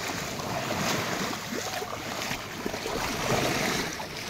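Small waves lapping on a sandy shore, with the splash of bare feet wading through ankle-deep water.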